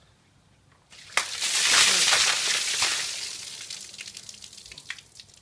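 A bucket of ice water poured over a person about a second in: a sudden gush of water splashing onto stone paving, fading over a few seconds into trickling and dripping.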